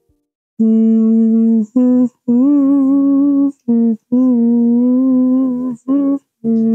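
A person humming a slow tune in about seven held notes of varied length, with short breaks between them and a slight waver in pitch.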